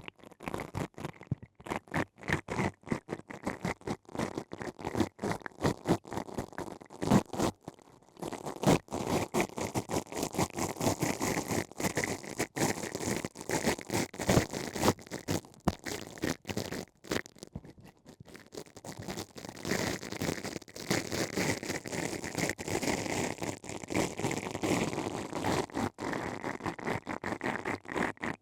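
Close-miked ASMR ear-cleaning sounds: ear-cleaning tools scratching and rubbing inside a microphone's artificial ear canal in fast, irregular strokes, starting abruptly and pausing briefly twice.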